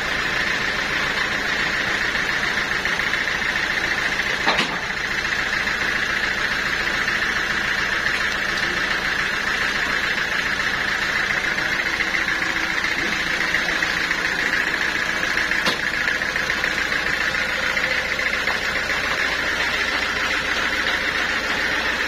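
Band sawmill running steadily, its drive and spinning blade making an even mechanical noise, with a single sharp knock about four and a half seconds in.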